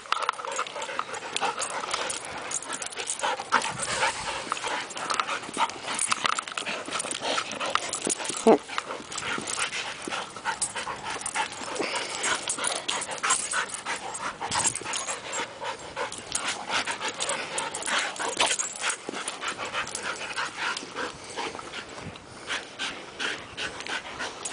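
Two dogs, a Rottweiler mix and a grey dog, play-fighting: a busy run of quick scuffling and mouthing sounds, with one sharp louder cry about eight and a half seconds in.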